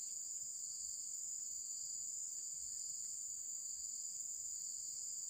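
A steady, high-pitched chorus of insects, an even drone with no break.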